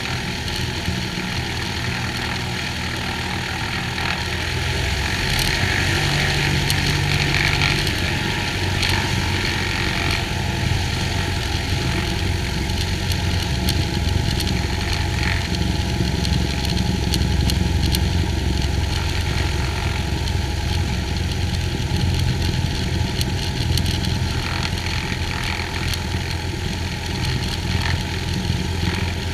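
Cessna 182H's six-cylinder Continental O-470 engine and propeller running steadily, heard from a camera mounted outside the aircraft. It grows louder about five seconds in and holds at the higher level.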